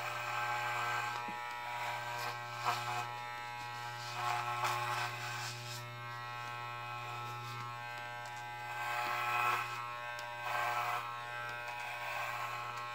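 Corded electric hair clippers running with a steady buzz while cutting hair on the side of the head, growing louder and rougher several times as the blades bite into the hair.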